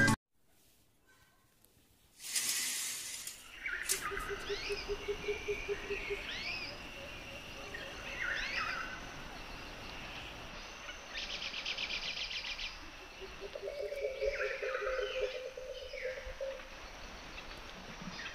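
Outdoor ambience with small birds chirping again and again over a steady background hiss. A brief rush of noise comes about two seconds in, and a low buzzing hum rises and fades twice.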